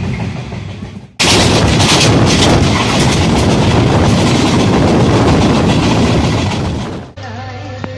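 Train running: a loud, steady rush of rumble and rattle that cuts in abruptly about a second in and fades out near the end.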